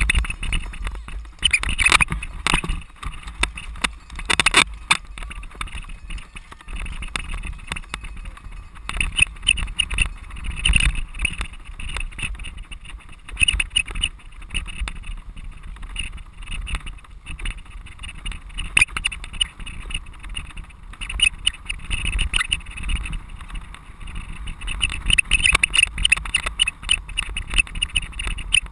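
Cyclocross bike rattling and clattering over rough grass, with wind buffeting the bike-mounted camera's microphone in a steady low rumble.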